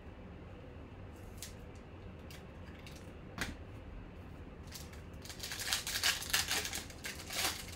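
Shiny foil wrapper of a 2020 Bowman Chrome baseball card pack crinkling and tearing as it is ripped open by hand, for a couple of seconds from about five seconds in. A couple of light clicks of cards being handled come before it.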